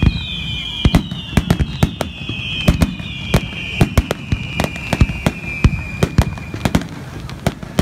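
Fireworks display: rapid, irregular bangs and cracks of bursting shells. A high whistling glides slowly down in pitch and stops about seven seconds in.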